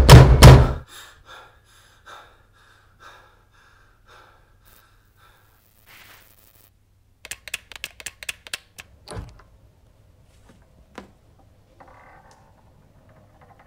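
Heavy drum beats from a horror film score stop about a second in and leave fading, echoing taps. Around the middle comes a quick run of sharp clicks from a handheld flashlight being worked in the hand, ending in a low thud, followed by a few sparse clicks.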